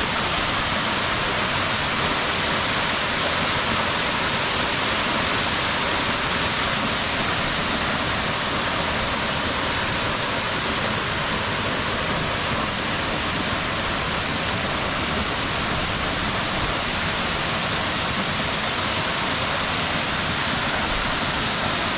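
Kanunga Falls' water pouring down in a steady, unbroken rush.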